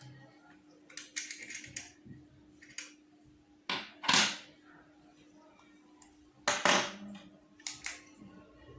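Small metal tools and a wristwatch being handled on a hard work surface: a scattered series of short clinks and scrapes, the loudest about four seconds in and again past six seconds, over a faint steady hum.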